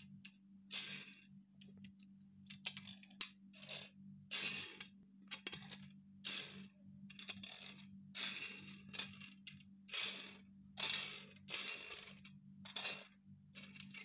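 Small plastic building-brick toy cars pushed back and forth across a hard surface in short strokes, their plastic wheels and bricks rattling about once a second, over a steady low hum.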